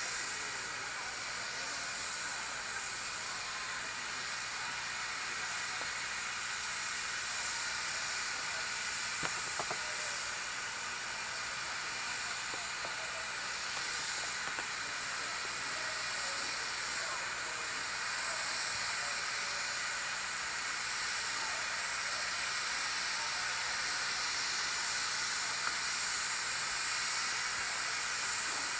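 Narrow-gauge steam locomotive standing with steam escaping from low on its side in a steady hiss.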